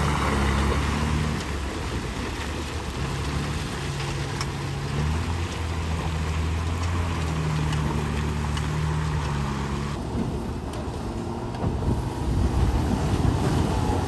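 Heavy dump truck's diesel engine running under load, its pitch stepping up a little about five seconds in. Wind buffets the microphone near the end.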